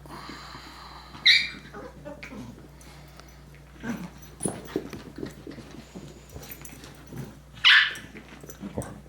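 Pet dogs at play: two short, sharp barks, one about a second in and one near the end, with quieter scuffling and grunting noises between.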